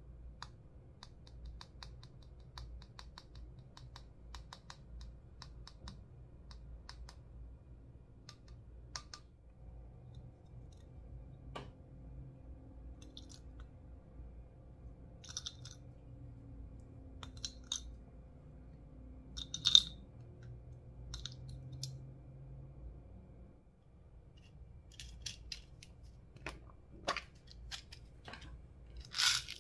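Scattered light clicks and crackles of slime and makeup being handled and mixed, with a sharper click about two-thirds of the way through and another near the end, over a faint low steady hum.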